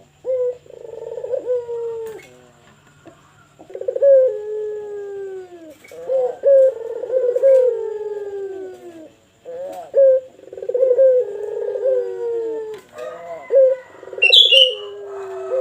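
Puter pelung (Barbary dove) cooing over and over, each coo a long, pitched call that slides down at its end. A brief high chirp from another small bird cuts in near the end.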